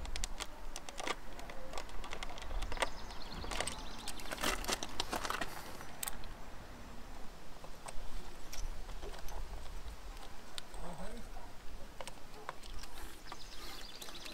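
Scattered small clicks and taps of hands handling parts of a Yamaha Virago 535's carburettor, with a denser run of clicks about four to five seconds in, over a low steady rumble.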